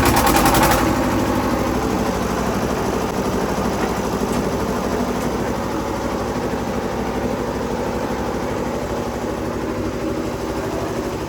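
Ice-crushing machine running steadily after start-up, with a rapid clattering for about the first second.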